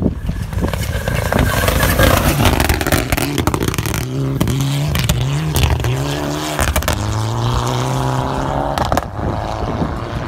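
Rally car engine revving hard as the car passes on a gravel stage, its pitch climbing and dropping repeatedly through gear changes, then holding steady as it pulls away. Many sharp clicks over a rough noise of tyres on gravel run underneath.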